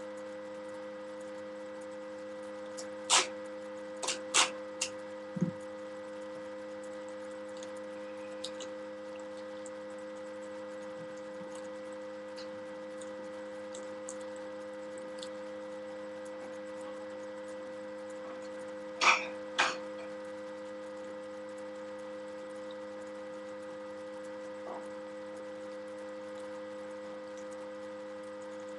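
Steady electrical mains hum, broken by short sharp crackles of sticky tape and cardboard being handled: a cluster of them a few seconds in and two louder ones about two-thirds of the way through.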